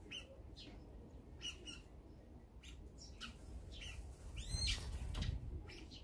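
Sparrows chirping in short, scattered calls, with one louder, longer arching call about four and a half seconds in.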